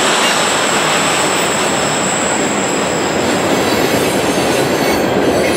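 Loaded rail cars of a continuous-welded-rail train rolling past, a steady rumble and clatter of wheels on the track. A thin high-pitched squeal rides over it and fades out about halfway through.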